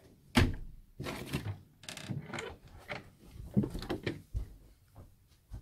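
A string of irregular knocks, thumps and scuffles from people moving about and jostling in a small room, mixed with handling noise from the camera.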